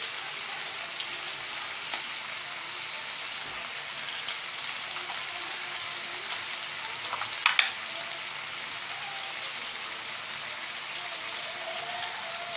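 Mixed vegetables frying in oil in a non-stick kadai, a steady sizzle, with a few sharp clicks, the loudest about seven and a half seconds in.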